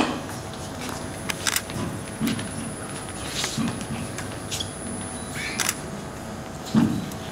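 Camera shutters clicking several times at uneven intervals, over a low murmur of the room. A brief low voice sounds near the end.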